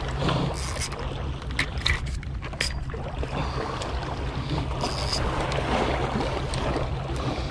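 Outdoor wind buffeting the microphone over a steady low rumble, with a few sharp clicks and knocks.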